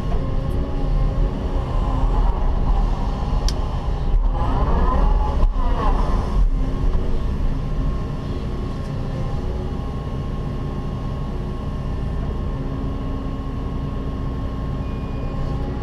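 Cat 316E excavator's diesel engine and hydraulics running under load, heard from inside the closed cab, with a pitched whine that rises and falls about four to six seconds in, then steadier running as the bucket digs.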